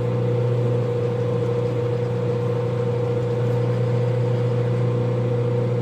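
Pen-turning lathe running steadily at constant speed with a pen mandrel and bushings spinning, a low motor hum under a steady higher tone. The mandrel runs nearly true, with only a slight wobble.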